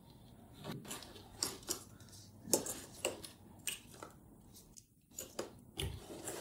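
Cardboard packaging being handled: box flaps and a cardboard insert lifted and slid out, with scattered light taps and scrapes.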